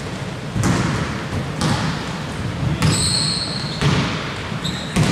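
A basketball bouncing on a hardwood court about once a second, each bounce echoing in a large hall. There are two short high-pitched squeaks partway through.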